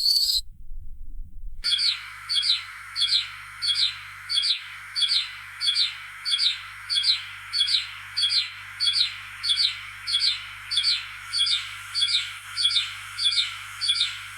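A sparrow chirping: a brief chirp, a short pause, then a long, very regular run of single chirps, a little under two a second. A steady hiss runs beneath it.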